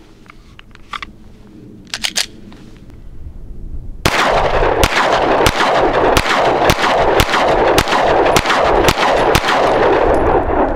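A 9mm pistol firing Herter's 115-grain FMJ rounds in quick succession: about a dozen shots at roughly two a second, starting about four seconds in after a few faint clicks. The shots come evenly with no stoppage, the ammo running 100% reliably.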